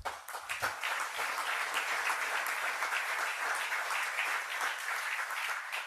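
Audience applauding in a large hall, steady clapping that fades away near the end.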